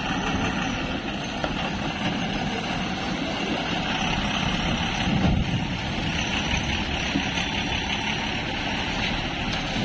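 Heavily loaded 14-wheeler lorry's diesel engine running as it crawls through muddy potholes close by. The low engine sound swells briefly about five seconds in.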